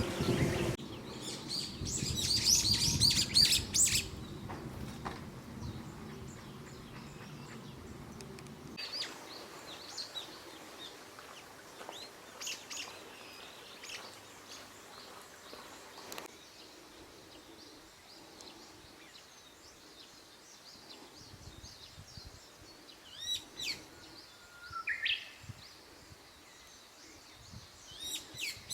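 Small birds chirping and calling. A loud, dense flurry of chirps comes in the first few seconds over a low rumble that fades out after several seconds; after that come scattered single chirps and calls, including one rising call, and a few more chirps near the end.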